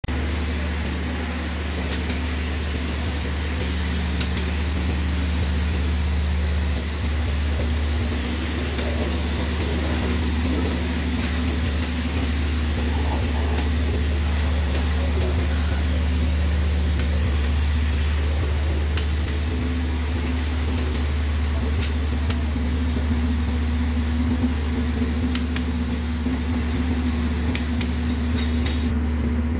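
A steady low machine hum, with a few light clicks and taps now and then.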